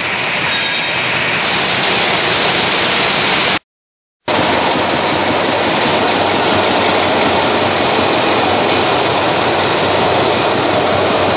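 Stainless-steel spiral vibratory conveyor running, a steady loud mechanical rattle and hum as it shakes small rubber gasket rings up its tiers. The sound drops out for about half a second a little over three seconds in, then resumes unchanged.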